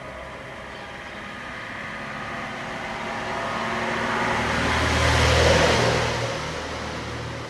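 A motor vehicle driving past, heard swelling for about five seconds, loudest about five and a half seconds in, then fading quickly.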